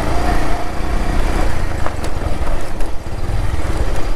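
Motorcycle engine running at low road speed on a rough dirt track, with a few brief knocks.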